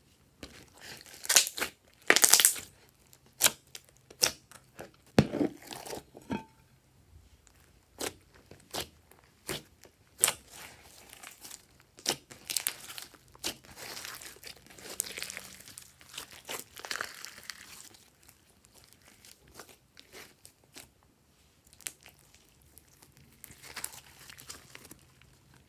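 Glossy slime being squished, stretched and folded by hand, making irregular sticky clicks and crackling, with the loudest squelches about two seconds in.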